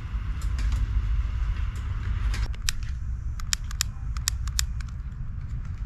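Jet-flame torch lighter: a steady hiss and low rumble, then from about halfway a quick run of about ten sharp igniter clicks as it is clicked again and again without catching, which its user takes for the lighter being broken.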